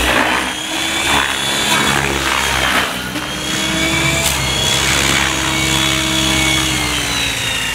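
Gaui X7 electric RC helicopter flying: the rotor's buzz and the motor's whine, the pitch gliding up and down as it manoeuvres, easing lower near the end.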